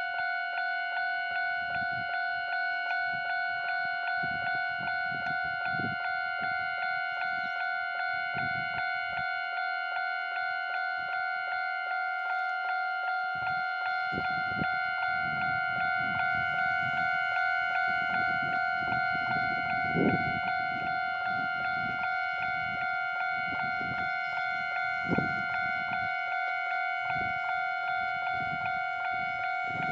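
Railway level-crossing warning bell ringing steadily in rapid, even strokes as a train approaches. From about halfway, the rumble of the approaching two-car Konan Railway 7000 series electric train grows underneath, with two short thumps.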